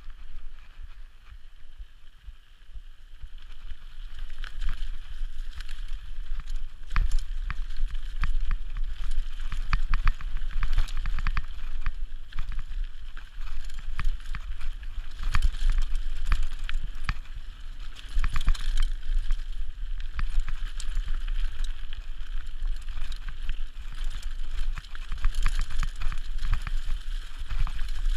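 Mountain bike riding fast down a dirt trail: tyres rolling over dirt and the bike rattling and clattering over bumps, with wind rumbling on the camera microphone. Quieter for the first few seconds, then louder as speed builds.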